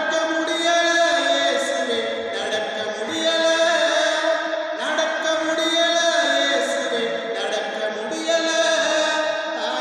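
A man singing a slow devotional hymn, with long held notes that step from one pitch to the next.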